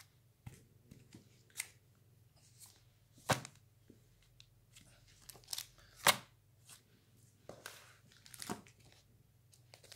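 Plastic comic-book bags crinkling and rustling as bagged comics are flipped through by hand, in short scattered crackles, the loudest about three and six seconds in.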